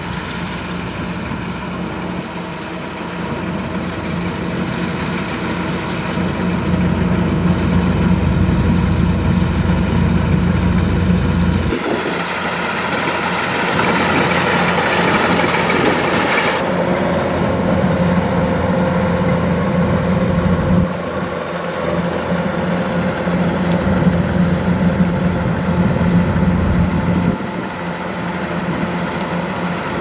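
Kubota DC-105X combine harvester running as it cuts rice: a steady diesel engine drone with the threshing machinery, growing louder as the machine approaches over the first several seconds. A hissing rush rises for a few seconds around the middle.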